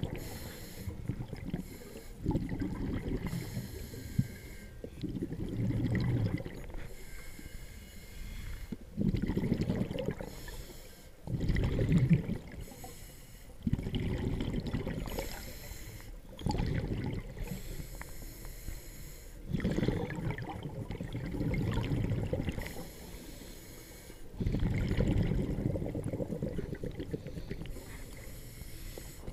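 Scuba diver breathing through a regulator underwater: a short hiss on each inhale, then a longer low rush of exhaled bubbles, repeating about every four to five seconds.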